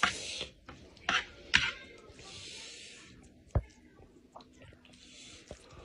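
Wooden chopsticks clicking and tapping against a wooden tray as a heap of chili noodles is stirred and lifted, about four sharp clicks with soft rustling between them.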